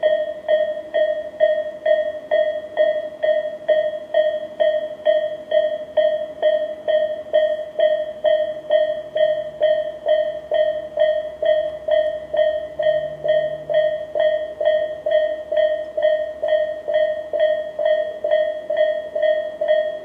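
Japanese level-crossing warning bells, the electronic type with Tobu Railway's 'Tobu sound A' tone, ringing in a steady even rhythm of about two and a half dings a second, each ding decaying quickly. The crossing is warning of an approaching train.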